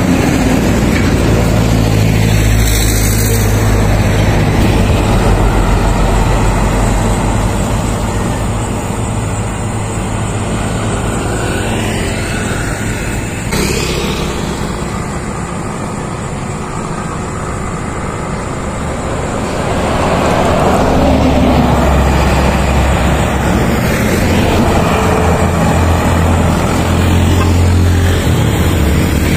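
Highway traffic going past: buses, trucks and smaller vehicles drive by one after another, with a steady low engine drone and tyre noise. It eases around the middle and builds again as more heavy vehicles approach.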